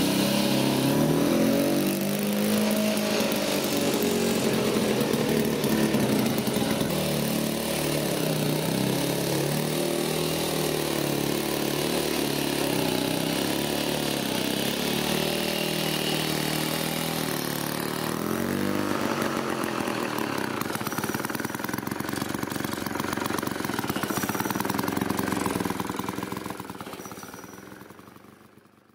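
1953 Atco 14-inch cylinder lawn mower's two-stroke petrol engine running steadily while cutting grass, its pitch wavering slightly with the load. The sound fades out near the end.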